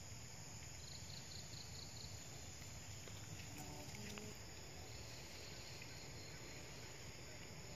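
Forest insects chirping, with a quick run of evenly spaced high chirps about a second in, over a steady low background hum.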